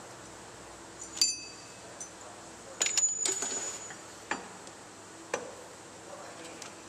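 Metal parts clinking and knocking as the loosened power steering pump and its lines are handled: one sharp ringing clink about a second in, a brief clatter of several clinks near three seconds, then a couple of single light knocks.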